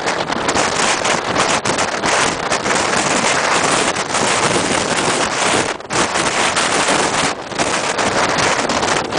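Gale-force wind buffeting the microphone: a loud, steady rush of noise that drops away briefly twice in the second half.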